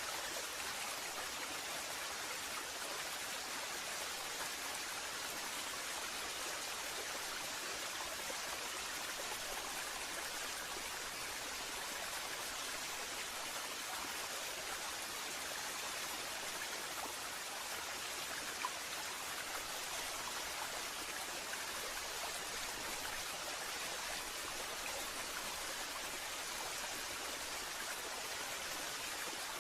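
Waterfall: a steady, even rush of falling water that holds unchanged throughout, with one small tick about two-thirds of the way through.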